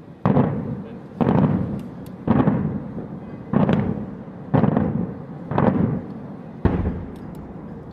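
Daytime aerial firework shells going off in a rapid series: seven loud bangs about a second apart, each trailing off in a rumble.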